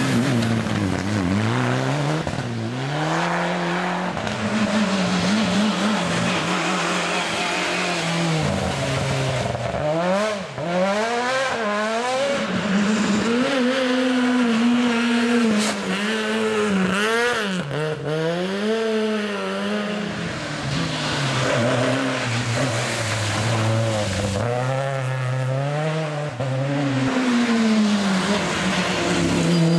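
Rally cars taking a tight hairpin one after another, among them a Mitsubishi Lancer Evolution and a Suzuki Swift: each engine's pitch drops as the car brakes and changes down into the bend, then rises in quick steps as it accelerates out through the gears.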